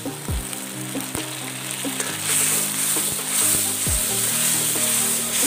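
Ground tomato poured into hot oil and onions in an iron kadai, sizzling loudly, the sizzle swelling about two seconds in as the mixture is stirred with a flat spatula that clicks against the pan.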